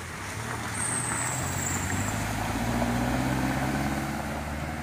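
A small hatchback's engine running at low speed as the car drives through a deep flooded pothole, its tyres pushing through and splashing the muddy water. The hum grows louder about a second in as the car comes through. A brief high whistle sounds at about the same moment.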